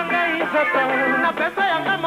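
Congolese rumba band music playing: several melodic lines moving quickly over a steady bass.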